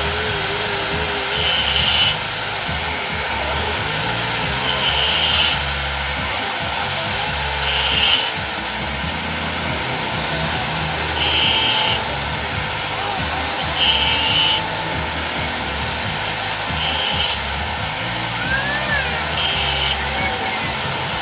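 Electric angle grinder running with a steady high whine while it is used to cut off a tight ring, with short harsher patches every couple of seconds.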